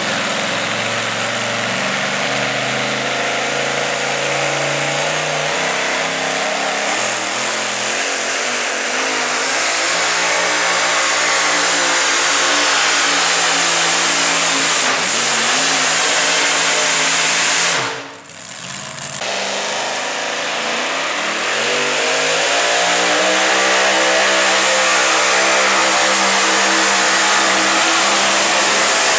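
Two-wheel-drive pulling truck's engine run hard at high revs, dragging the sled down the track. Its pitch sags and the sound cuts out briefly about two-thirds of the way through, then a truck engine climbs back up to high revs and holds there.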